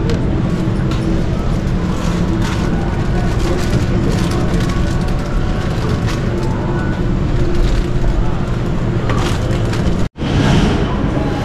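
Supermarket ambience: a steady low hum, like open refrigerated display cases, under indistinct background voices and occasional clicks and clatter. The sound cuts out abruptly about ten seconds in, then resumes.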